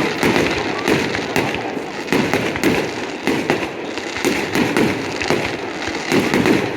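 Fireworks display going off: a dense, unbroken barrage of bangs and crackles, several a second.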